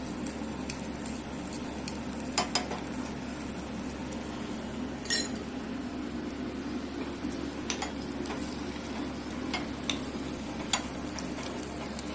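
Pounded ginger frying in ghee in a pan, sizzling steadily while a spoon stirs it and clinks against the pan about seven times, with a longer scrape near the middle; the ginger is being roasted until it turns brown.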